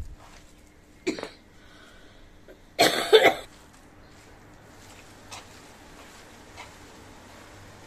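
A person coughing: one short cough about a second in, then a louder, longer double cough around three seconds in.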